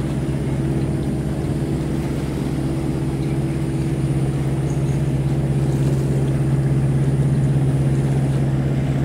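Sea-Doo jet ski engine idling, a steady, even hum as the watercraft moves slowly at low speed.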